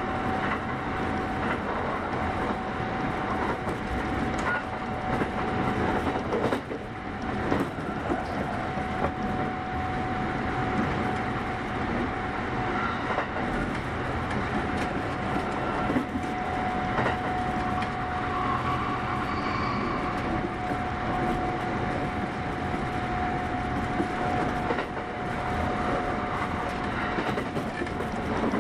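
Kintetsu 8810 series electric train running at speed, heard from inside the car: steady wheel and rail noise with clickety-clack over the rail joints and a thin, steady high whine.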